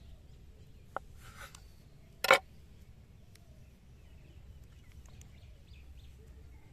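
Chef's knife cutting through paneer and striking a wooden chopping board: a light tap about a second in, a short scrape, then one sharp knock a little after two seconds. Faint bird chirps in the background.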